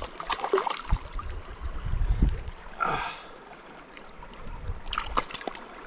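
A freshly landed cutthroat trout flopping in the grass at the water's edge, with scattered rustles and light slaps as a hand grabs at it.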